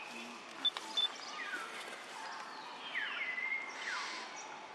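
Outdoor animal calls: several short high calls that slide down in pitch, one holding a level note briefly, over a steady background hiss, with two sharp ticks about a second in.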